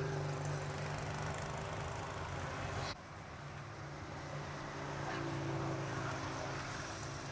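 An engine running steadily with a low hum. It drops off abruptly about three seconds in, then comes back and slowly swells.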